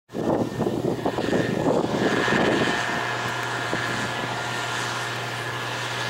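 Case IH 2388 combine's diesel engine and threshing machinery running steadily while harvesting soybeans, a continuous drone with a steady low hum and a faint high whine. For about the first three seconds, irregular wind buffeting on the microphone rumbles over it.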